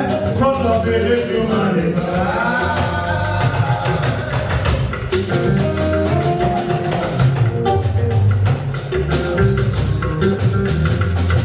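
Live band music at a sound check: a stepping bass line under drums and percussion, with a melody line over them.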